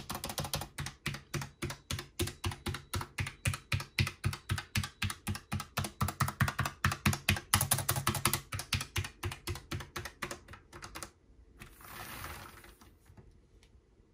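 Typing on a Logitech MX Mechanical Mini keyboard with Tactile Quiet (brown) switches: a steady, rapid run of keystrokes, about five or six a second, that stops about eleven seconds in. A brief soft hiss follows about a second later.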